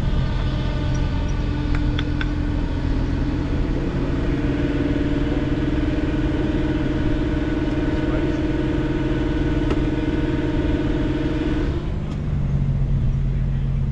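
Machinery running: a steady low engine drone, joined about two seconds in by a higher motor whine that rises slightly, holds steady, and stops abruptly near the end.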